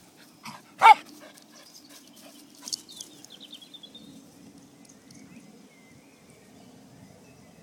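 Springer spaniel giving one loud, sharp bark about a second in, falling in pitch, with a few fainter yaps around it: excited barking for the ball to be thrown.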